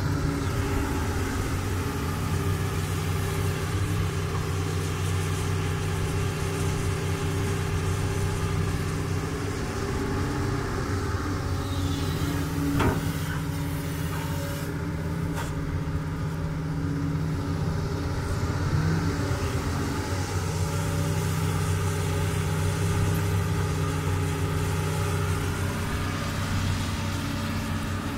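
Doosan DX200 crawler excavator's diesel engine running steadily under working load, its pitch easing briefly now and then. A single sharp knock about a third of the way through.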